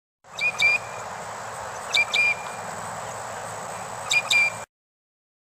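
Loggerhead shrike calling: three short bursts, each two sharp notes, about every two seconds, over steady background hiss.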